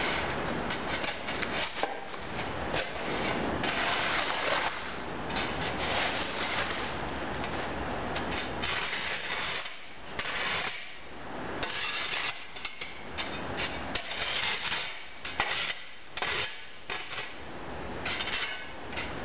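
Steel shovel chopping and scraping through a heat-baked sand casting mould, crunching up the sand, with clumps dropping onto plastic sheeting and the blade scraping over the cast iron casting underneath. The knocks and scrapes come in quick irregular strokes, with a couple of short pauses.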